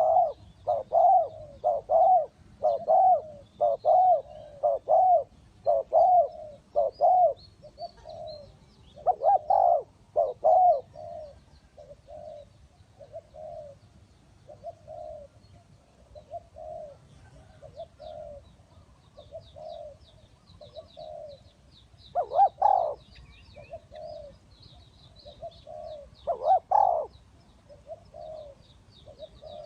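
Spotted dove cooing: a long run of short coo notes about one a second, loud at first, then softer with a few loud notes again about two-thirds of the way in and near the end. Faint high chirping of small birds runs underneath, growing in the second half.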